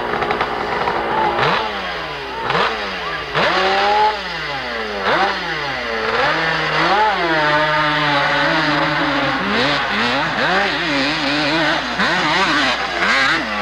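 Dirt bike engine revved in short repeated blips, each rising and dropping back, then held at higher revs with small wavers.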